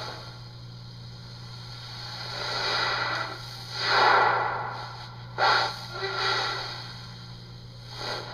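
Steady low electrical hum with several soft breathy hissing swells, the loudest about four seconds in.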